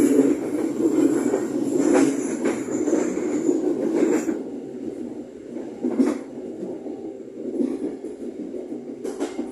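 Local passenger train running along the track, heard from its last carriage: a steady rumble with a few knocks of the wheels over rail joints. A thin high squeal of the wheels on the curve fades out about halfway through.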